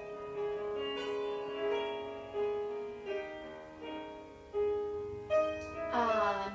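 Classical piano accompaniment, held notes changing every second or so.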